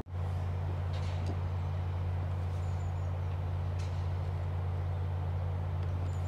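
A steady low mechanical hum, with a few faint ticks and a couple of short, high chirps.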